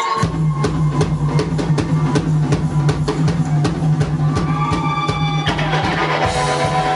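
Live rock band playing loud: the full band comes in just after the start with a heavy held bass note and steady drum hits, about three a second. Guitar notes come in more strongly about five seconds in.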